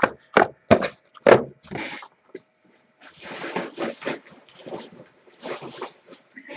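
Cardboard trading-card boxes being handled and opened: a few sharp knocks in the first second and a half, then several bursts of rustling and scraping packaging.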